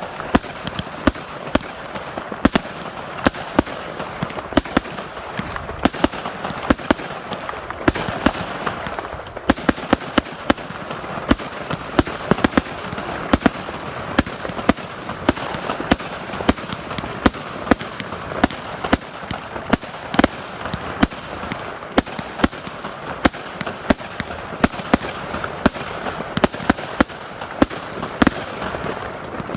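A 100-shot consumer firework cake firing: a rapid stream of sharp bangs, several a second, over a continuous crackling hiss.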